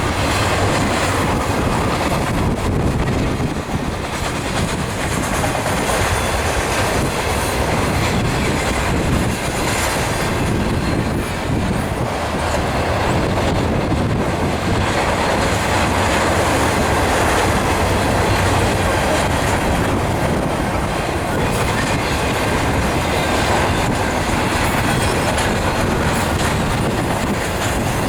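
Freight train cars rolling past on the rails, a loud, steady rumble and clatter of wheels on track.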